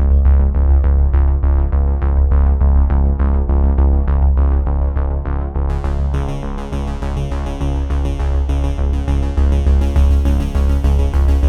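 Electronic background music: synthesizer over a heavy steady bass with a regular beat. About halfway through, a bright high layer comes in over it.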